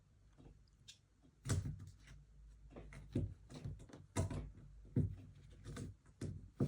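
A door rattling and knocking in its frame as cats push and paw at it: a string of irregular knocks and thuds, about half a dozen loud ones beginning about a second and a half in.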